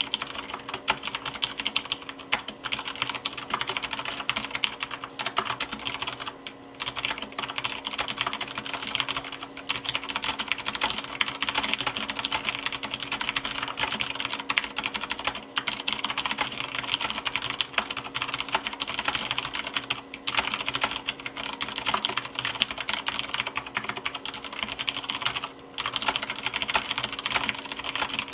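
Continuous typing on a Ganss GS104 mechanical keyboard with unlubricated Cherry MX Clear tactile, non-clicky switches and stock ABS OEM-profile keycaps: a dense stream of keystrokes with a few brief pauses, over a steady faint hum.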